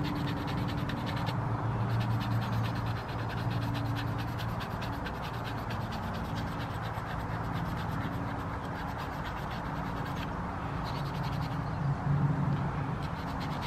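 Abrasive paper rubbing over a hand-carved wooden spoon: steady, scratchy sanding strokes, a little louder near the end.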